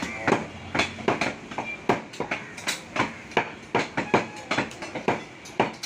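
Butcher chopping beef, the blade striking the chopping block in quick, slightly uneven strokes about two to three times a second.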